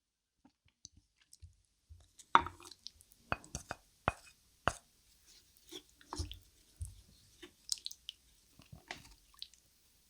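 Close-miked chewing with wet, squishy mouth sounds and irregular sharp clicks, the loudest about two seconds in.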